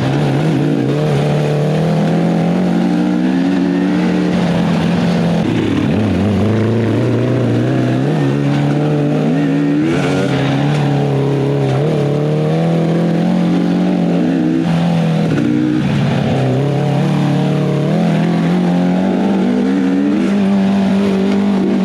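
Off-road vehicle's motor running under way, its pitch holding steady for stretches, dropping about six seconds in, then climbing back up.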